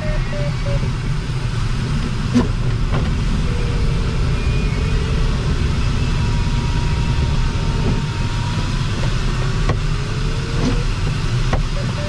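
Steady rush of airflow around a banking LS-4 glider's cockpit and canopy. The electronic variometer beeps rapidly for the first second and starts beeping again at the very end, its climb tone, with a few sharp clicks in between.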